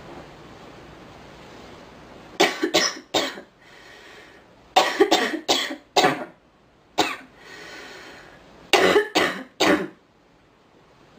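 A girl coughing in fits: three coughs, then four, then a single cough, then three more, with breaths drawn in between the bouts.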